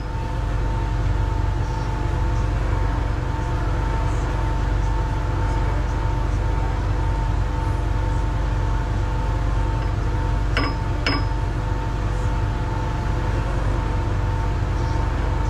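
Steady hum of a metal lathe's running drive while a crown wheel is trued in the chuck. Two sharp metallic clicks come about half a second apart, about two thirds of the way through.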